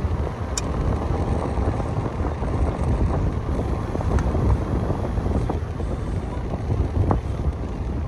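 Wind buffeting the microphone in a dense, fluttering low rumble, with one sharp click about half a second in.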